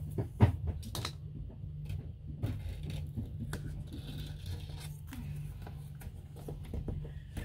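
Light scraping and small clicks of a wooden popsicle stick pressing an adhesive tape strip onto an RV window frame, with a sharper knock about half a second in, over a steady low hum.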